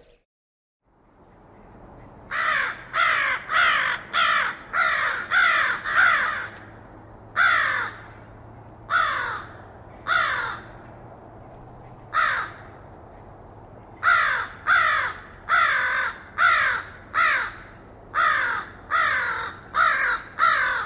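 A crow cawing. First comes a quick run of about seven caws, then four single caws spaced a second or two apart, then another quick run of about ten. Each caw falls in pitch.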